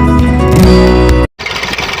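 Plucked guitar music that cuts off abruptly about a second and a quarter in; after a brief gap a small motor of a DIY miniature farm machine starts running steadily.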